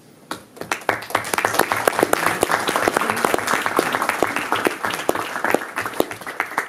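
Audience applauding, the clapping starting right away, filling out within about a second and thinning out near the end.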